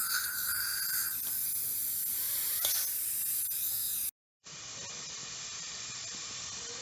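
Dental cleaning equipment hissing steadily during a teeth cleaning. About four seconds in it cuts off, and a quieter, duller steady rush follows.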